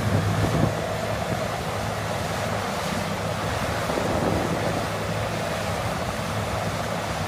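Cat 6015B hydraulic mining excavator running steadily while it digs, its engine a constant low sound under heavy wind noise on the microphone.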